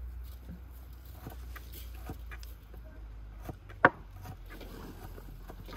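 Hands mixing and squeezing salted shredded cabbage in a steel bowl, with faint rustling and light ticks and one sharp knock about four seconds in. A low steady rumble runs underneath.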